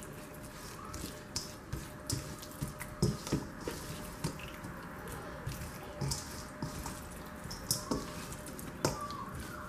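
A hand mixing thin fish slices in a wet spice-and-tamarind marinade in a stainless steel bowl. Squelching and slapping of the coated pieces, with irregular clicks and taps against the metal bowl.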